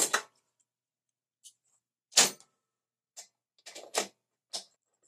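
About six sharp, irregular metallic clicks and clacks from a 16 mm magnetic spark plug socket and its extension being handled and fitted. The loudest comes a little past two seconds in.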